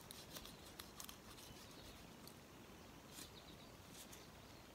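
Near silence, with a few faint, scattered clicks from a knife cutting around the skin and tendons of a plucked chicken's leg.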